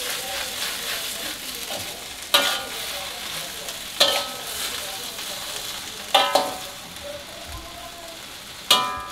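Water spinach sizzling as it is stir-fried in a steel wok, with five sharp, ringing clangs of the metal spatula striking the wok, the last two close together near the middle and one near the end.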